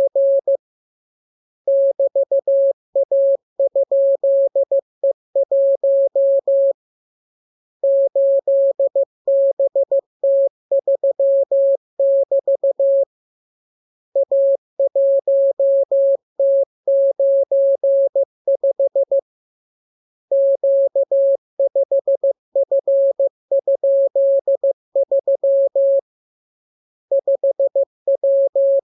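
Morse code as a single steady beeping tone, keyed on and off in dots and dashes. It comes in runs of about five to six seconds with pauses of about a second between them.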